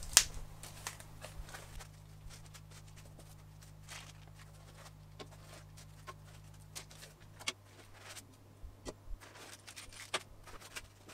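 Unboxing a cardboard box of parts: cardboard flaps handled, small plastic zip bags crinkling, and parts tapped and clicked down on a table in a string of light, irregular knocks. One sharp knock comes just after the start.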